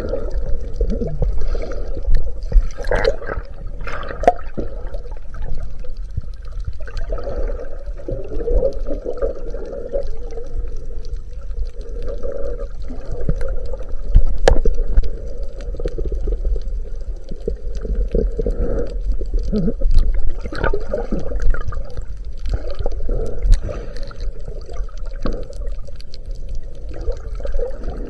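Muffled underwater sound from a chest-mounted camera's waterproof housing while snorkeling: water sloshing and rushing in swells that come and go every few seconds, over a constant low rumble, with a few sharp clicks.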